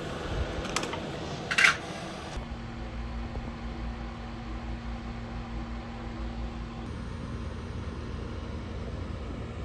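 Steady fan-like hum with a low rumble, a faint steady tone joining it for a few seconds after the start; two sharp clicks in the first two seconds, the second the loudest sound.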